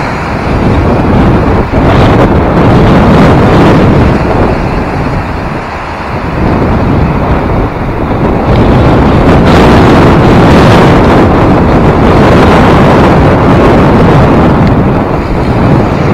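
Strong wind buffeting the microphone: a loud, steady rumbling rush that eases briefly around the middle.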